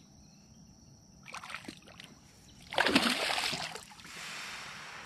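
A hooked bass thrashing and splashing at the water's surface beside a kayak: a short splash about a second and a half in, a louder burst of splashing about three seconds in, then softer water noise.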